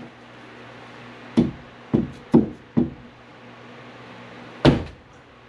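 Five sharp knocks: four in quick succession about half a second apart, then a louder one near the end.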